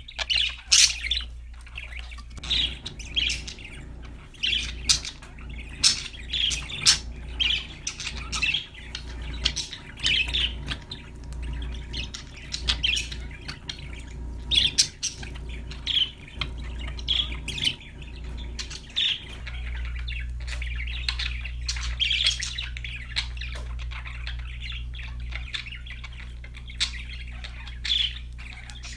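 A group of budgerigars chirping and squawking in quick, irregular short calls, over a steady low background hum.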